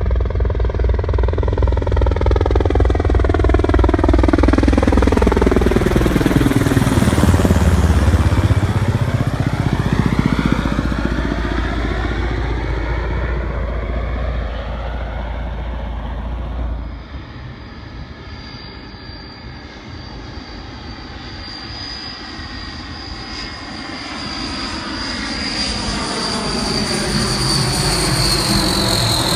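Military aircraft passing low and close, loudest about eight seconds in, with a deep steady drone underneath. The sound drops abruptly partway through, and a second aircraft's engines build toward the end with a high whine sliding down in pitch as it goes by.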